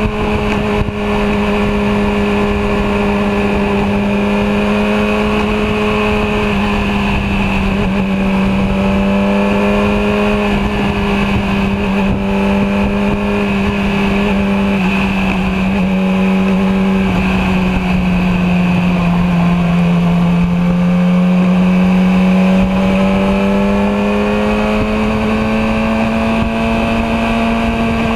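Yamaha R6 inline-four engine running steadily at highway speed, its note dipping a little about two-thirds of the way through and then rising again.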